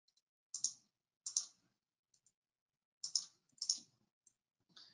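Four sharp clicks at a computer, each a quick pair of ticks, coming irregularly over about three seconds, with a faint tick near the end.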